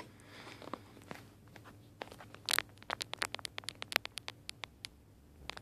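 Irregular run of sharp clicks and crackles as RCA cable plugs are connected to a car amplifier's inputs, with one louder crack about two and a half seconds in.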